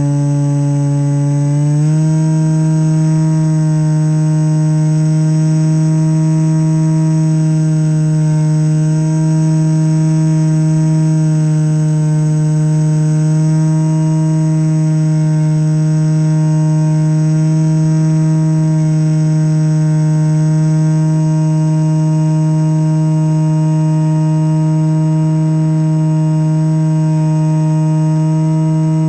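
Electric RS2205 2300kv brushless motor and propeller of a foamboard RC plane droning steadily in flight, heard through the onboard camera. The pitch steps up slightly within the first two seconds and then holds.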